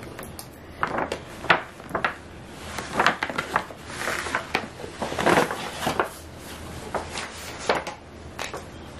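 Paper shopping bag and cardboard box rustling and scraping as a boxed laptop is handled and slid out of the bag, in irregular bursts with a few sharper knocks.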